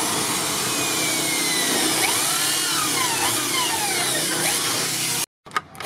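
Electric drill running steadily under load as it drives a screw into a wooden board. It cuts off abruptly about five seconds in, followed by a few quick scraping strokes.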